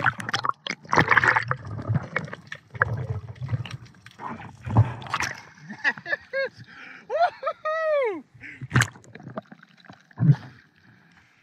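Water splashing and gurgling around a freediver in the sea, with a few sharp knocks and short muffled wordless vocal sounds about two-thirds of the way through.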